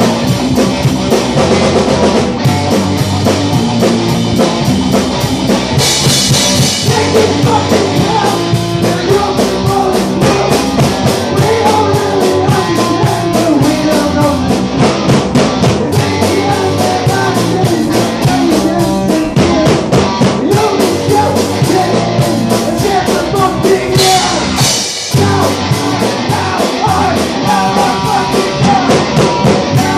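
Punk rock song played by a band: loud, driving drum kit with other instruments and singing.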